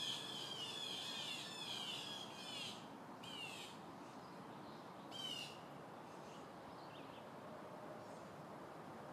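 Small birds chirping: a quick run of short falling chirps for the first few seconds, then single calls at intervals, over a faint steady background hiss.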